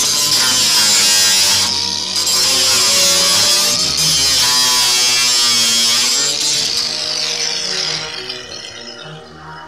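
Makita 18-volt cordless angle grinder cutting galvanised corrugated steel roofing sheet: a loud, gritty hiss of the disc on the metal over a motor whine that wavers in pitch as the load changes. Near the end the grinder is lifted off the sheet and the sound drops away.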